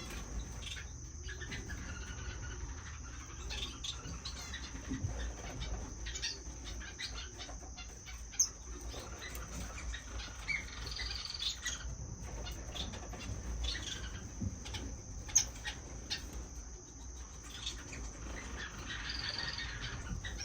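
Caged finches chirping and calling: scattered short high chirps, a couple sharper and louder than the rest, over a steady high-pitched whine.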